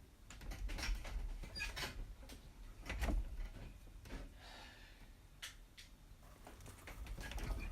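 Handling noises: scattered clicks, light knocks and rustling as the transceiver's carrying bag and accessories are handled and unpacked.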